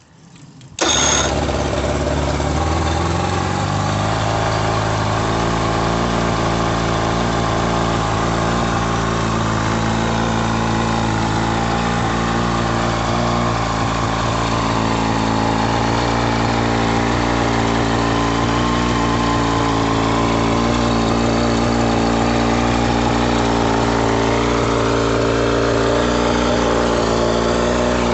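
1961 Mercury Merc 500 outboard motor, an inline four-cylinder two-stroke, firing up about a second in on its first start after a full restoration. It picks up speed over the next few seconds, then runs steadily.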